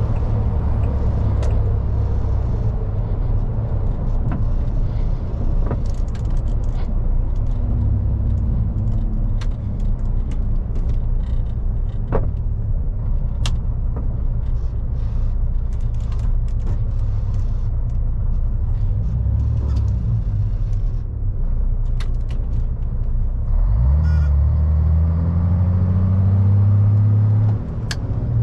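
A MAN truck's diesel engine and running noise on the move: a steady low rumble with scattered rattles and clicks. Near the end the engine note climbs and grows louder as it pulls, then drops off suddenly.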